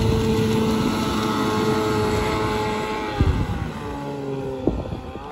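15 hp two-stroke Johnson outboard motor (1998) on an inflatable boat running at speed, a steady engine note that drops in pitch about three seconds in. Two short low thumps come near the middle and near the end.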